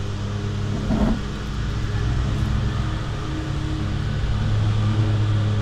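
Steady low mechanical hum, with a brief short sound about a second in.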